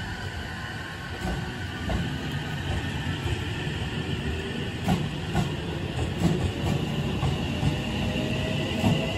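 JR Central 313-5000 series electric train moving slowly along the platform: a low rumble of wheels on rail with scattered clicks over the joints, and a thin electric motor whine that rises slowly in pitch in the second half as the train picks up speed.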